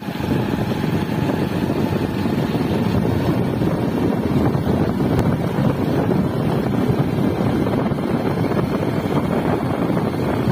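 Steady wind noise buffeting the microphone of a moving vehicle, a dense low rumble that stays even throughout.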